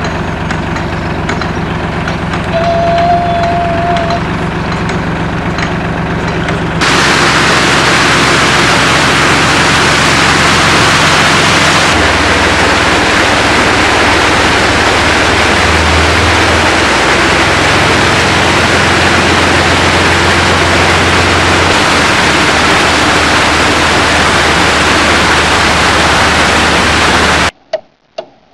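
Narrowboat's diesel engine running steadily at low revs. About seven seconds in, a loud steady rushing hiss starts abruptly over the engine. Near the end it all cuts off and a clock starts ticking.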